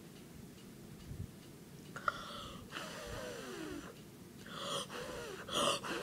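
A frightened person's breathy gasps and whimpers, several short ones with a voice in them. About three seconds in comes a longer whine that falls in pitch, and the loudest gasp is near the end.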